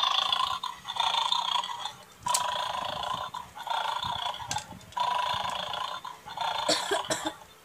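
Toy bulldog from a bone-stealing game making its electronic snoring sound over and over, about one snore every second and a half. A few sharp clicks come in between.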